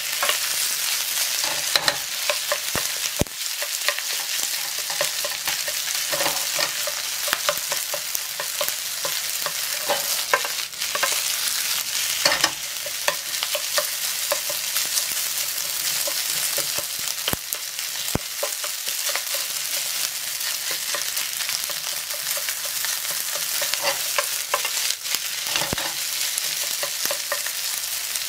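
Rice, sausage and egg sizzling in oil in a frying pan over high heat, while a wooden spatula repeatedly taps, scrapes and stirs through the rice to break it up.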